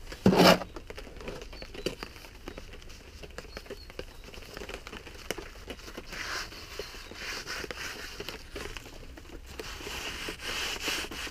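Rain pattering steadily, a dense run of small drops, with one sharp knock about half a second in from brick and mortar work.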